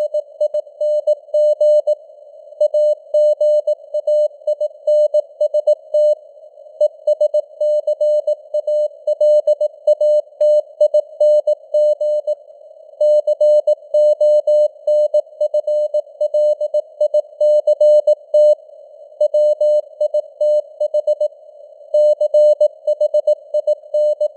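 Morse code at 18 words per minute: a single steady beep keyed on and off in dots and dashes, with short gaps between words, over a narrow band of simulated radio receiver hiss.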